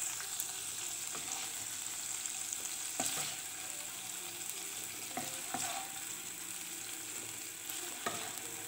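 Boneless chicken pieces sizzling steadily in butter and oil in a non-stick pan, with a few scrapes and taps of a wooden spatula as the pieces are scooped out.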